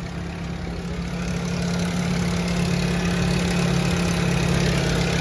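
Nissan GA14DNE four-cylinder engine idling with a rattle. It grows louder over the first couple of seconds and then holds steady. The rattle is loudest at the oil pan.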